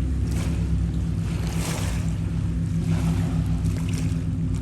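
A steady low motor drone, unchanging throughout, with short gusts of wind rushing on the microphone every second or so.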